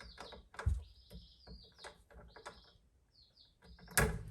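Small bird chirping repeatedly in short, high warbling notes, with scattered light clicks and a sharp knock near the end.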